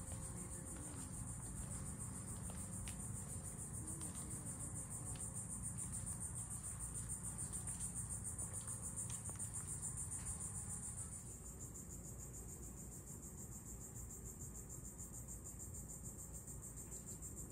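Insects in a steady, high-pitched pulsing chorus, easing slightly about two-thirds of the way through.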